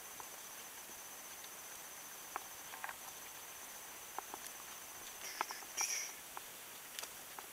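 Faint, steady, high-pitched trill of a cricket. Scattered soft clicks and a brief louder burst about three-quarters through break in over it.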